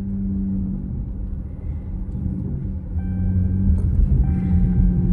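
Road noise inside a car's cabin while driving: a low, steady rumble that grows louder about three seconds in.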